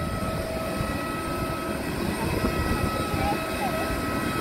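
Jet airliner noise on the apron: a steady high whine over a continuous low rumble.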